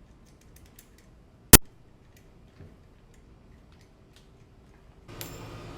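Small metal clicks and ticks of steering-wheel hub parts and a hand tool being handled, with one sharp, loud click about a second and a half in. Near the end a steady background noise comes in.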